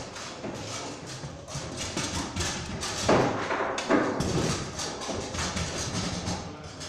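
Table football in play on a Bonzini foosball table: irregular knocks and clacks as the ball is struck and stopped by the players' figures and the rods and table are worked. Two louder knocks come about three and four seconds in.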